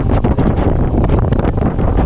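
Wind buffeting the microphone of a camera on a moving mountain bike, with frequent small rattles and knocks from the bike.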